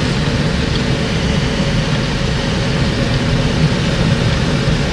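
Steady rumble inside a moving car in a rainstorm: engine and tyre noise, with rain on the car body.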